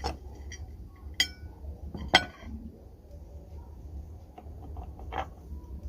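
Hard objects clinking together: four sharp clinks with a short ring, the loudest about two seconds in, over a steady low hum.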